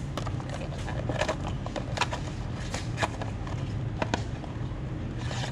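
About half a dozen sharp clicks and light knocks, spaced irregularly, from parts and packaging being handled during an oil filter change. Under them runs a steady low hum.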